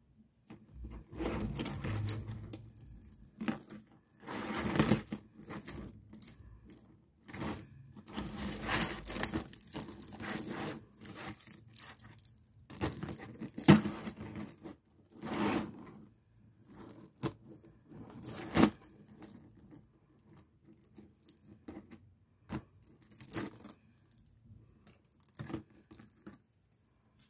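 Beads of a handmade beaded handbag clicking and rattling against each other as the bag is handled, in irregular bursts with short pauses and a few sharper clacks.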